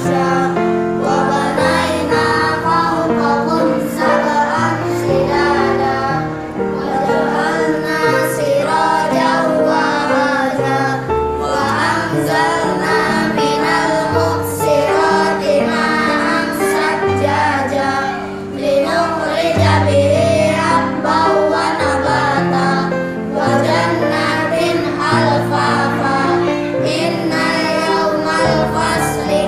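A group of children singing together over instrumental backing music, the held bass notes shifting every second or two under the voices.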